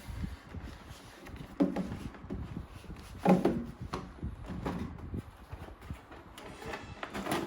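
Toy packaging being handled during an unboxing: a series of separate knocks and thuds from the box and its packaging, the loudest about one and a half and three seconds in.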